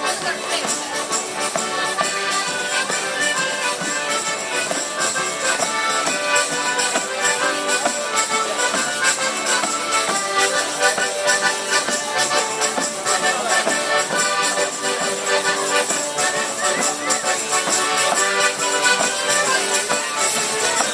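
Several piano accordions playing a traditional folk dance tune live, with a tambourine shaking and striking along.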